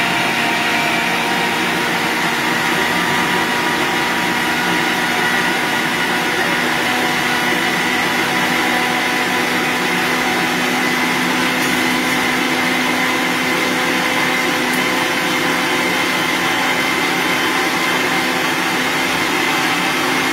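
Countertop blender running steadily as it blends a fruit smoothie with ice and water. It makes an even motor whine that holds one pitch.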